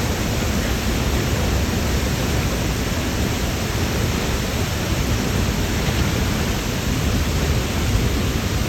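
Steady rush of the La Fortuna waterfall's falling water, an even, unbroken noise heaviest in the low range.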